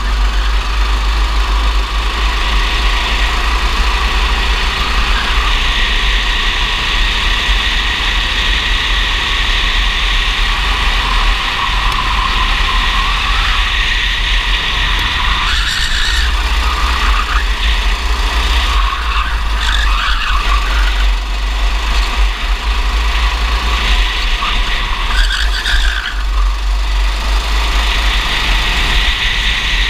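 Racing kart engine running hard at speed, heard from on board the kart, its note drifting up and down through the corners. Wind rush on the microphone runs under it throughout.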